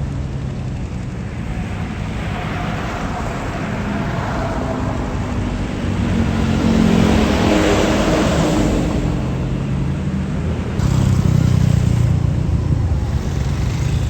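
Large diesel tour bus engine running as a bus drives past. The engine noise swells to its loudest about seven to nine seconds in, and a second loud, low rumble starts near eleven seconds.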